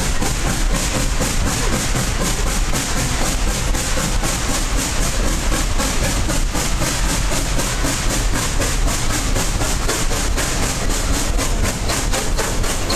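Tweetsie Railroad's narrow-gauge steam train running, heard from an open passenger car: a steady rumble of wheels on rail with clickety-clack and hiss.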